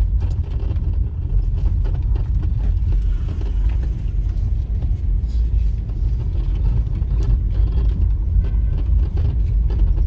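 Vehicle driving along a road, heard from on board: a steady low rumble of engine and road noise.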